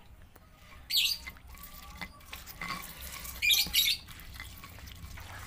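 Wet squelching and scraping of sambal being worked in a stone mortar, lime juice squeezed in by hand and the chilli paste mixed with a stone pestle. There are two louder short bursts, about a second in and again past three and a half seconds.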